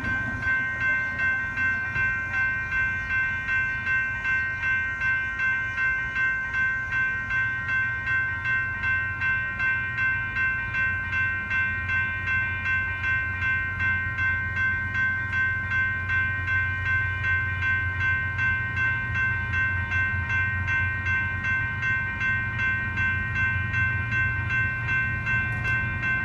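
Railroad grade crossing bell ringing with an even, rapid pulse, roughly two strokes a second, warning of an approaching train. A low rumble builds beneath it in the second half.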